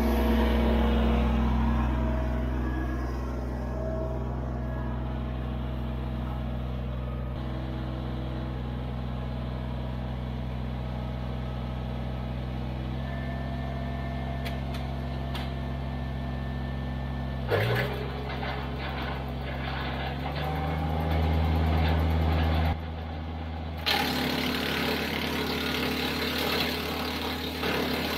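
Compact tractor's diesel engine running steadily, its pitch shifting a few times, with one sharp knock about 17 seconds in and a rougher, noisier stretch near the end.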